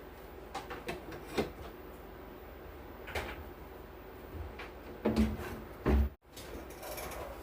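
Bench handling noises during electronics repair work: scattered light clicks and knocks of tools and parts, with two heavier thumps about five and six seconds in.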